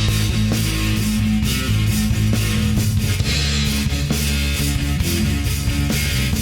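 Background rock music with distorted electric guitar, bass and drums keeping a steady beat.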